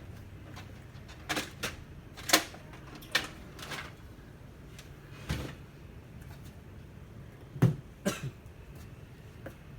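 Irregular clicks and knocks of plastic and metal printer parts being handled during disassembly, about ten in all, the sharpest a little over two seconds in and about three quarters of the way through, over a low steady hum.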